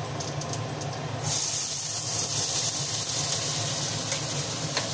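Chopped onions dropped into hot mustard oil in a steel frying pan, starting to sizzle about a second in and sizzling steadily, with a few light taps of a spoon scraping the onions off the plate near the end. A steady low hum runs underneath.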